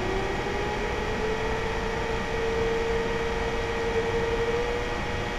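Synthesized Model 2 warning-siren tone made in Audacity, its pitch still winding up slowly at first and then holding steady at full pitch, over a steady hiss.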